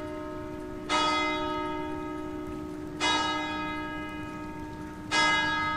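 A church bell tolling slowly: one bell struck three times about two seconds apart, each stroke ringing on and fading before the next.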